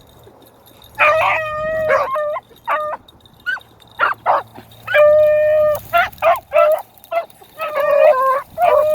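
Beagles baying on a fresh rabbit track: long drawn-out bays mixed with shorter chop barks, starting about a second in.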